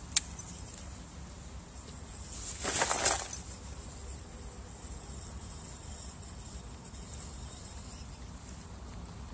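Low wind rumble on the microphone at the shoreline, with a single sharp click just after the start and a short rustling burst of noise about three seconds in, the loudest moment.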